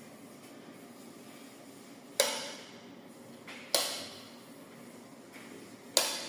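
Three sharp knocks, each with a short ringing decay, spaced about a second and a half to two seconds apart: hard household objects being set down or bumped during cleaning.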